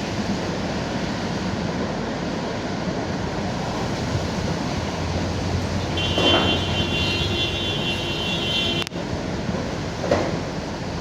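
Strong wind rushing and buffeting the microphone, a steady roar of noise with louder gusts about six seconds in and again near the end.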